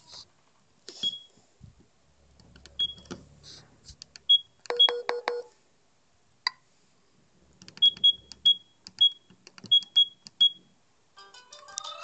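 Sagem my700X mobile phone giving short, high key-press beeps, one at a time, as its keys are pressed to move through the menus, with a brief pulsed lower tone about five seconds in. Near the end one of the phone's ringtones starts playing through its speaker.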